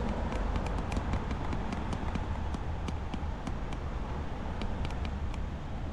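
Low, steady rumble of city street traffic, with scattered light clicks in short clusters.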